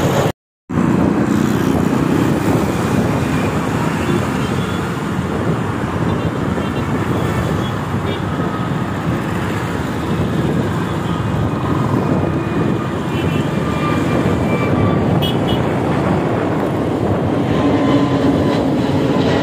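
Steady, loud roar of a jet airliner's engines climbing out low overhead after take-off, mixed with the noise of road traffic.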